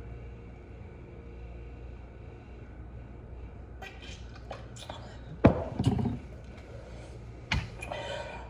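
Close-up eating sounds: mouth clicks and smacks start after a few seconds of steady low hum, with a loud sharp knock about halfway through and another near the end.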